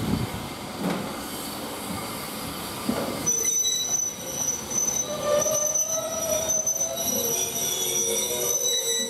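A passenger train's wheels squealing against the rails over the rumble of the moving coaches. The squeal starts about three seconds in: one shrill steady tone with other high squeals and lower wavering ones.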